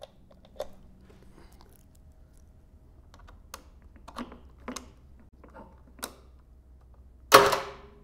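Scattered light clicks and taps from handling a plastic ignition switch box and its key, with no starter cranking and no engine running. Near the end there is one loud, short hissing burst.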